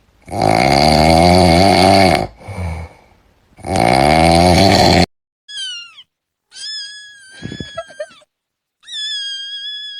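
Cats crying: two long, loud, low yowls with a wavering pitch, then three shorter, high-pitched meows.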